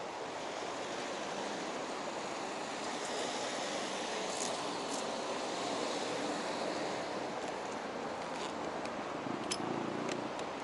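Steady outdoor road-traffic noise from passing cars, an even hiss with no engine note up close, with a few faint clicks in the second half.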